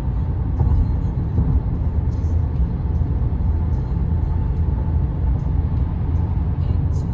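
Tyre and road noise heard inside a car's cabin at highway speed: a steady low rumble of the tyres rolling on the pavement.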